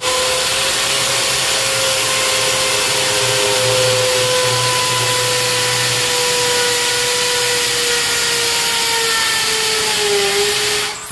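Corded electric drill running continuously at full speed, its bit boring into a ceramic wall tile, with a steady motor whine. The pitch sags briefly near the end, and then the drill stops.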